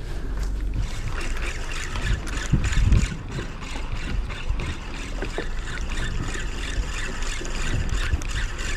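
Water splashing and trickling alongside a small boat at sea, with many small irregular splashes over a steady low rumble.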